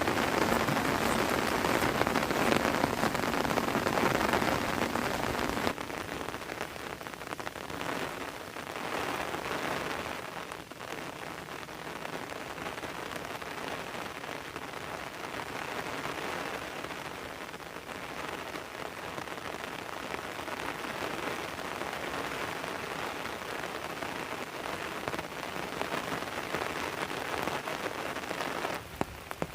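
Heavy rain falling steadily, a dense hiss of drops hitting surfaces; about six seconds in it drops abruptly to a quieter, still steady rain.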